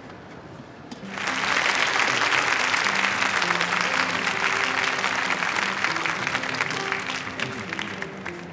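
Audience applause, starting suddenly about a second in and slowly dying down toward the end, over background music with sustained notes.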